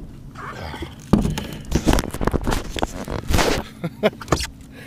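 A string of knocks, thumps and rustling from a kayak's hull and gear as a freshly caught largemouth bass is handled aboard, with a louder rustle about three and a half seconds in.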